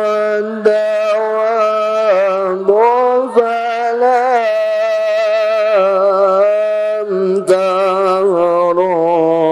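A man's voice chanting an Arabic devotional poem very slowly, drawing each syllable out into long held notes that waver and slide in pitch without a break.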